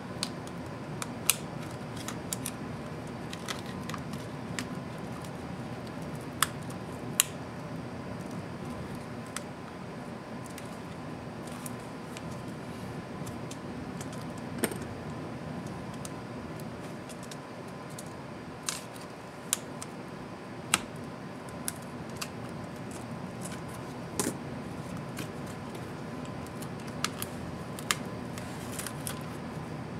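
Irregular sharp clicks and taps of a small screwdriver and the laptop's plastic and metal parts as a ThinkPad Helix tablet is taken apart, scattered over a steady low background noise with a faint steady tone.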